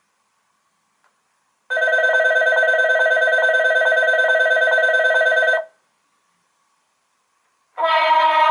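An electronic bell rings steadily for about four seconds and stops. Near the end a second, differently pitched ringing tone starts.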